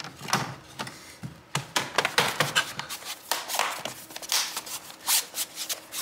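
Plastic bottom cover of an Acer Aspire 3 A315-23 laptop being pressed down and handled, a quick, irregular run of clicks and taps as its clips seat and the laptop is shifted on the bench.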